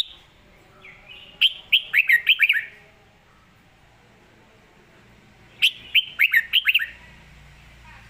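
Red-whiskered bulbul singing: two short, quick phrases of sharp falling notes, about four seconds apart and much alike in shape.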